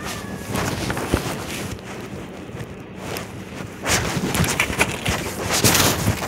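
Clothing rustling and rubbing against a phone's microphone inside a pocket, in irregular scrapes and bumps that grow busier from about four seconds in.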